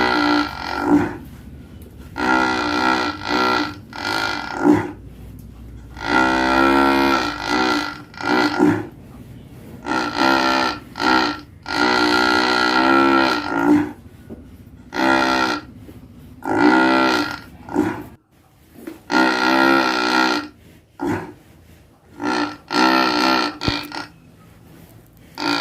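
A large cow snoring in its sleep: drawn-out, pitched snores a second or two long, one every two to four seconds, with shorter, sharper breaths in between.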